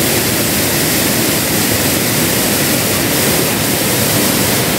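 Steady rushing of river water, a loud even roar of flowing water with no breaks.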